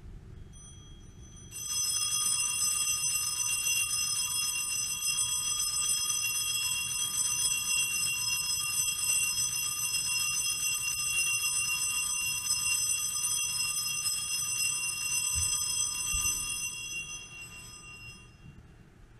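Altar bells rung continuously in a bright, high, sustained ringing during the blessing with the monstrance at Benediction. The ringing starts about a second and a half in and fades out near the end.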